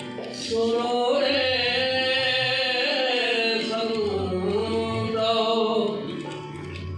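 Sikh kirtan: a male voice sings a devotional hymn in long held notes that slide up and down, over steady harmonium accompaniment.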